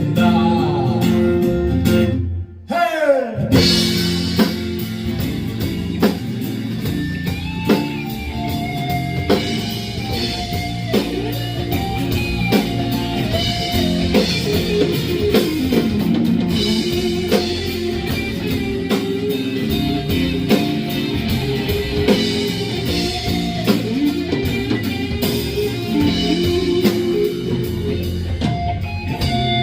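A live band plays an instrumental break: guitar carries the melody over a drum kit. The music briefly drops out about two seconds in, then resumes.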